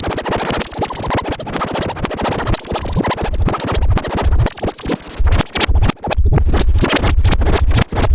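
Harsh, distorted electronic emergency-alert alarm noise, rapidly stuttering and chopped, with a heavy low rumble joining in a few seconds in.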